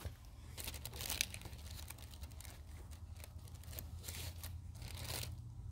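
Irregular crinkling and rustling of food packaging being handled, in short bursts, over a steady low rumble.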